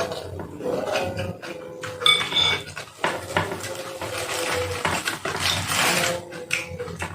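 Cutlery clinking and scraping against a bowl of soup, with one ringing clink about two seconds in.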